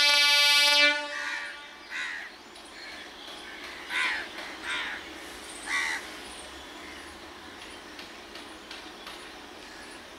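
Electric multiple unit local train's horn sounding one blast for about a second at the start, cut off sharply, followed by crows cawing several times over the faint rumble of the trains.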